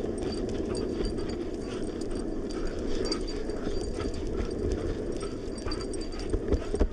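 Longboard wheels rolling steadily over asphalt at speed, with the quick rhythmic patter of a German Shepherd's paws running ahead on the leash.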